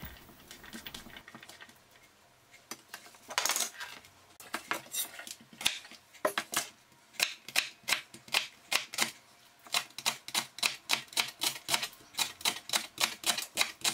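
Kitchen knife slicing a leek into thin rings on a plastic cutting board: sharp chops that start a few seconds in, irregular at first, then settle into a steady run of about three a second.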